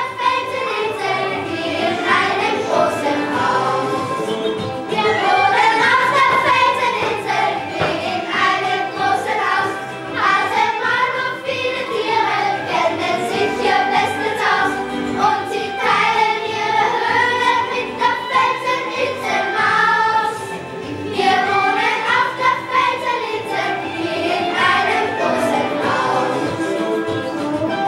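A children's choir singing a song together, with musical accompaniment underneath.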